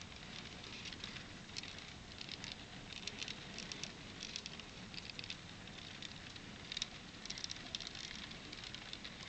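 N scale model passenger cars rolling along curved track, their small wheels making a faint, rapid, irregular clicking and rattling over a low rumble.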